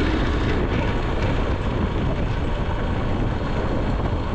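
Motorcycle running along at road speed, with engine and road noise and wind buffeting the microphone.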